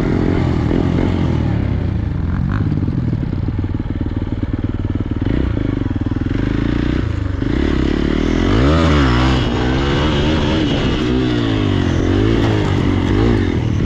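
Hero XPulse single-cylinder motorcycle engine running under load off-road. From about halfway on it revs up and down several times as the throttle is worked.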